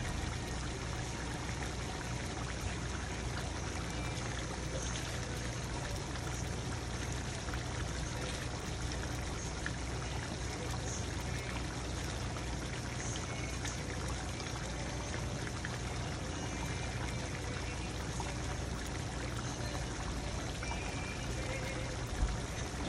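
Chicken curry simmering in a frying pan, bubbling steadily.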